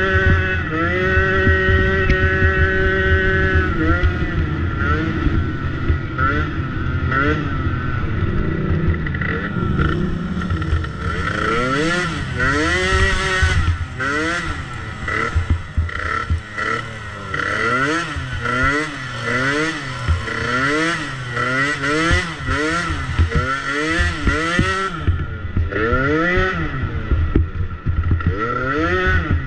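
50cc two-stroke dirt bike engine being ridden hard, held at a steady high note at first, then revving up and falling off about once a second as the throttle is worked on and off, with scattered knocks mixed in.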